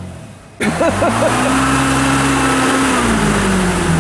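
UAZ off-road vehicle's engine running steadily while the vehicle sits bogged in a muddy rut; the sound cuts in suddenly about half a second in, and the engine note eases down about three seconds in.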